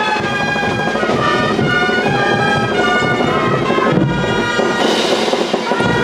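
Brass band playing dance music, with long held notes.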